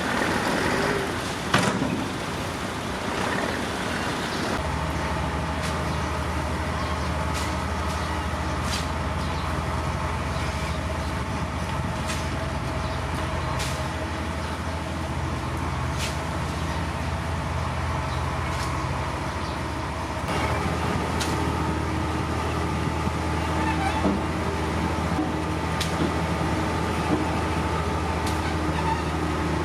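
Heavy diesel engine of earthmoving machinery running steadily, its low drone settling in a few seconds in and rising in level about two-thirds of the way through, with scattered sharp metallic clanks over it.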